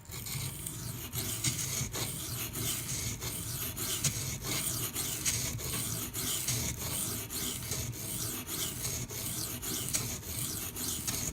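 Maxamet steel knife blade scraped in rapid, repeated strokes across a coarse silicon carbide sharpening stone. This is re-establishing a deliberately dulled edge and grinding to raise a burr.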